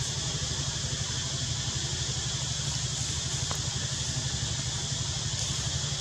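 Steady low rumble of an idling engine under a constant high hiss.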